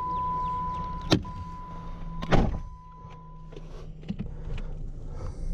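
Car sounds: a steady high warning tone from the car that stops a little over halfway through, over a low steady hum. A sharp knock comes about a second in, and a louder short thump, the loudest sound, comes about two and a half seconds in.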